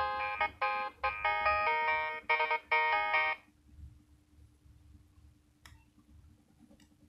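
Nokia 6100 mobile phone ringtone: a quick melody of short electronic notes, several sounding at once, that stops about three and a half seconds in. A couple of faint clicks follow in the quiet.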